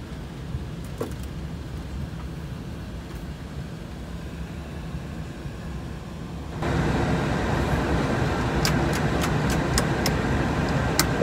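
Cockpit noise of an Embraer Legacy 600 business jet taxiing: a steady low rumble. About two-thirds of the way through it jumps abruptly louder, and several sharp clicks follow near the end.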